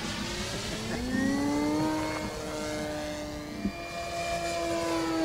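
Electric motor and propeller of an E-Flite Carbon-Z Cessna 150 RC model plane in flight, a steady whine that rises in pitch about a second in and then holds, over wind hiss.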